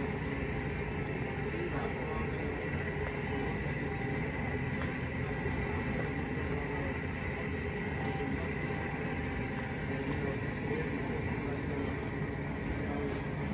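Steady low engine rumble and hiss with a faint hum, even and unbroken: the houseboat's motor running.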